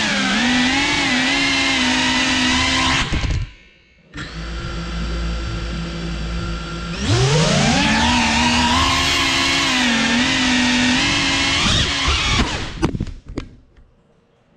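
GEPRC CineLog 35 cinewhoop's motors and ducted propellers whining, the pitch wavering with throttle. A few seconds in the sound drops out briefly and a lower steady hum follows; then the pitch climbs steeply as the throttle comes back up. Near the end the whine breaks up with a few sharp clicks and dies away.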